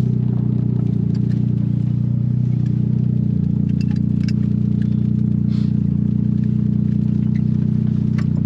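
Built turbocharged 1.8T four-cylinder engine of a VW Cabrio running at a steady, unchanging drone, with light clicks and rattles over it.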